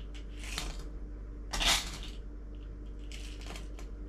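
Lead shot rattling in a tin as it is scooped and levelled with a small measure: a few short rattles, the loudest about one and a half seconds in, then a scatter of light clicks around three seconds.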